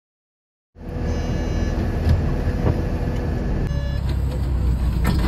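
After a moment of silence, a bus engine runs with a steady low rumble, heard from inside the bus by its doors. There is a short knock near the end.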